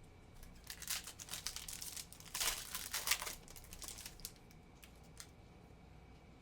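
Foil wrapper of a Topps Update Series baseball card pack being torn open and crinkled, the crackling loudest about two and a half to three seconds in, then a few light rustles of handling.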